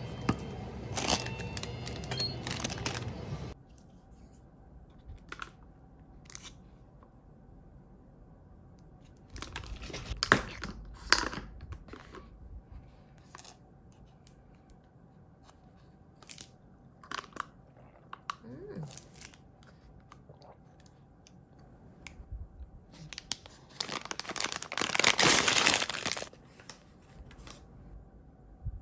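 Snack wrapper being torn open and crinkled in short bouts, loudest near the end. Background music plays for the first few seconds and then cuts off.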